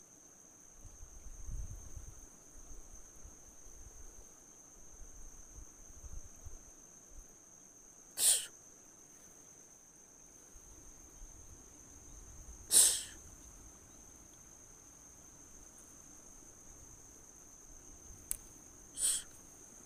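Insects chirring in a steady, high, continuous drone. Three short, sharp, hissy bursts stand out above it, a few seconds apart, and are the loudest sounds.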